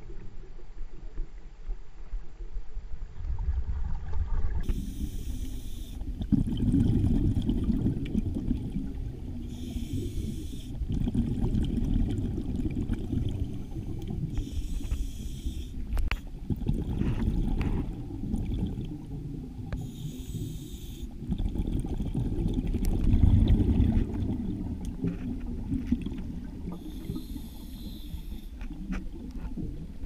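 Scuba diver breathing through a regulator underwater: a short hiss of inhalation roughly every five seconds, and between them the low rumble and gurgle of exhaled bubbles.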